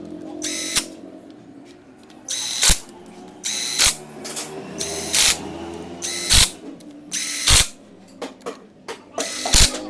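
A power driver run in seven short bursts of about half a second, each a high whine that mostly ends in a sharp knock, as screws are driven home on a motorcycle engine's side cover.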